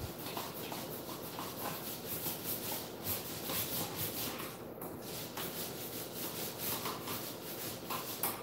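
Thick screen paint being worked onto a wall in repeated short strokes: a steady scratchy rubbing of the paint applicator against the wall.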